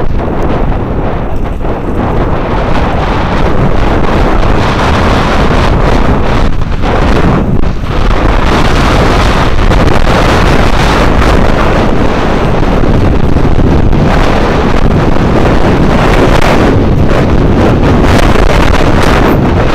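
Heavy wind buffeting on the microphone of a camera riding on a moving electric bike, a loud steady rushing noise that dips briefly a couple of times about a third of the way in.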